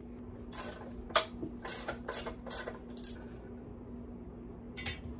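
Hand tools clinking and rasping against the Mercury 150 outboard's aluminium midsection as its bolts are worked loose, with a sharp metallic click about a second in and a run of short scrapes after it.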